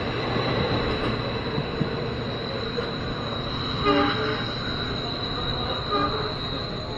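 Passenger train coaches rumbling along the rails as the train moves away, with two short train horn blasts about four and six seconds in.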